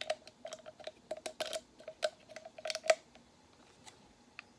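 Starbucks Via instant coffee stick packet crinkling and crackling as it is torn open by hand, a rapid run of small crackles that stops about three seconds in.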